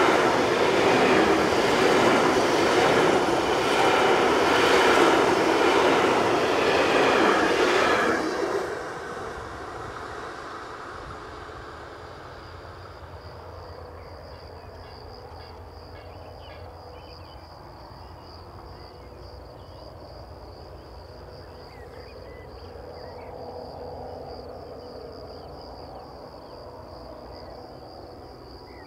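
Loaded container wagons of a freight train rolling past close by, their wheels running on the rails. About eight seconds in the sound drops away suddenly to a quiet evening background with a steady high insect trill and a faint low rumble.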